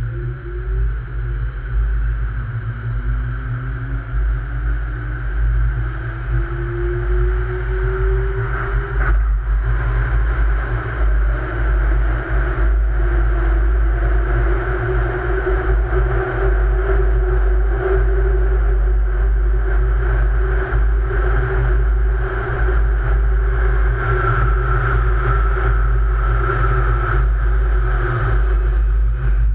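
Light-rail train accelerating away from a station and running through a tunnel. The traction motors' whine rises steadily in pitch for about nine seconds, then holds at an even pitch at running speed, over a heavy low rumble and the clatter of wheels on the track.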